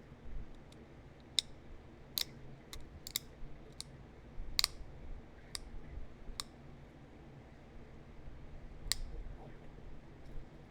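Sharp, irregular clicks of small flakes snapping off a heat-treated chert point as notches are pressure-flaked into it, about ten in all, the loudest about four and a half seconds in.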